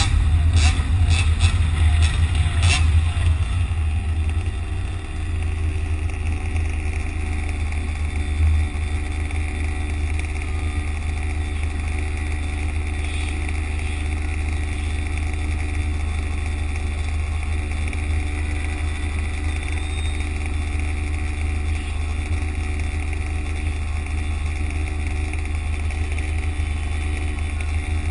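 Steady vehicle noise in road traffic: a heavy low rumble under a steady high whine, with a few sharp rattles in the first three seconds.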